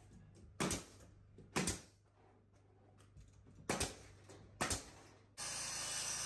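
Pneumatic nailer fired four times into pine floorboards, each shot a sharp double crack, the shots coming one to two seconds apart. Near the end a steady hiss takes over.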